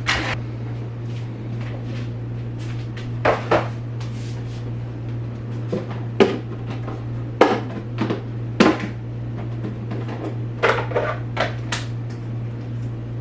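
Knocks and clatter of items and shelves being handled while a refrigerator is cleared out: about a dozen sharp, irregular knocks, some in quick clusters, over a steady low hum.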